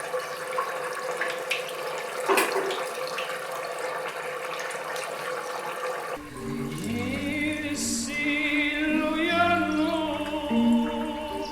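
Cannoli shells frying in hot oil, a steady sizzle with a few sharp crackles. About six seconds in, music with a singing voice and held notes takes over.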